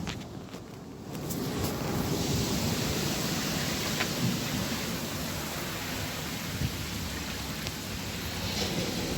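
Rough sea surf: a steady wash of breaking waves mixed with wind on the microphone. It is quieter for about the first second, then swells up and holds.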